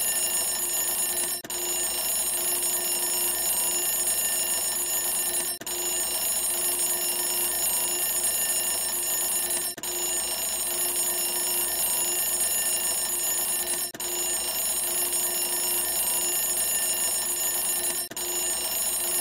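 Timer alarm ringing at zero to signal the end of the countdown: a continuous alarm-clock-style ringing that breaks off briefly about every four seconds and starts again.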